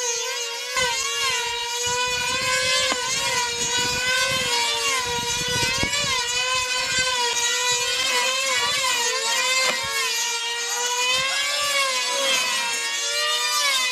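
Two F2D control-line combat models' small 2.5 cc engines running flat out in a high-pitched, steady scream. The pitch rises and falls every second or two as the planes circle the pilots.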